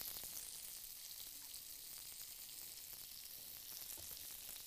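Food sizzling on a countertop grill: a faint, steady crackling hiss.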